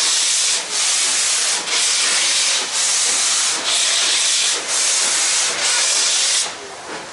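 Narrow-gauge Puffing Billy steam locomotive working, its exhaust hissing in long, even beats about once a second. The beats stop about six and a half seconds in, leaving the quieter running of the train.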